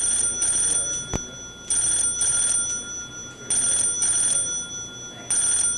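Telephone ringing in double rings, four times, about every two seconds, with no answer: the call is not being picked up. A short click comes about a second in.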